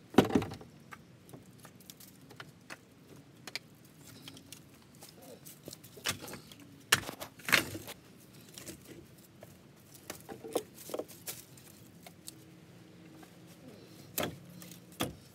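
Split firewood pieces knocking and clunking against each other as they are stacked by hand into a pickup truck bed: scattered sharp knocks, the loudest just at the start, with a cluster in the middle and more near the end.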